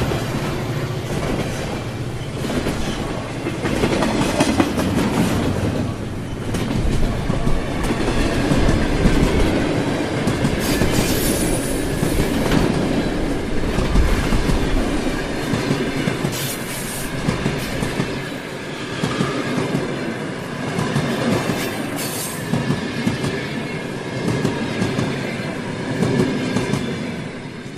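Model train running through a junction's interlocking, its wheels making a steady run of small clicks over the rail joints and switches.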